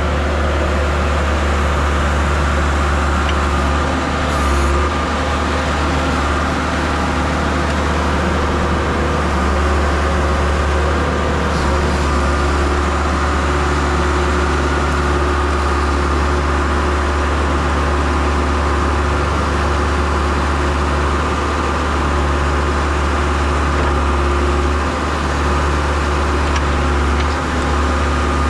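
John Deere 310SE loader backhoe's diesel engine running steadily with a deep, even hum.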